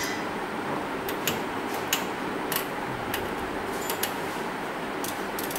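Light, sharp clicks from a detented rotary control on an analog oscilloscope's front panel being turned. There are about seven clicks, irregularly spaced half a second to a second apart, over steady background noise.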